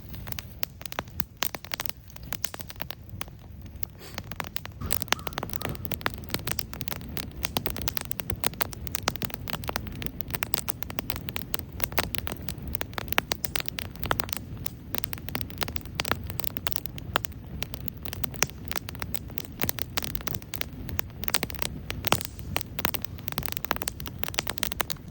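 Small wood campfire crackling, with dense irregular sharp snaps and pops over a low steady rumble.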